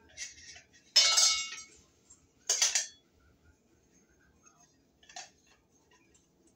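Ceiling fan parts clinking and clattering as they are handled and fitted together: four short clatters, the loudest about a second in with a brief metallic ring.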